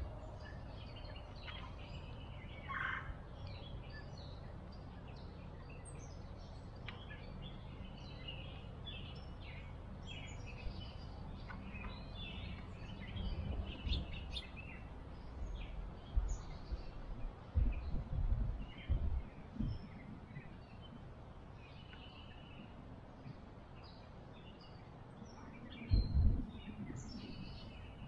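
Backyard songbirds chirping and singing on and off, with several low thumps or rumbles in the second half, the loudest near the end.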